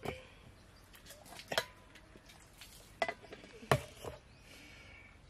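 A few sharp, irregular clinks and knocks of stainless-steel tumblers and plates being handled on a table, one with a short metallic ring.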